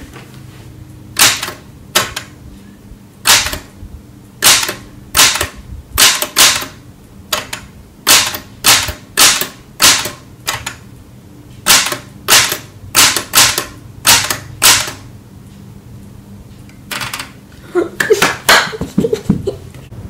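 Typing slowly on a 1968 Sears typewriter, one finger pecking one key at a time: loud single clacks of the typebars striking the paper, about one a second, some nineteen strokes. Near the end comes a quicker run of softer clatter.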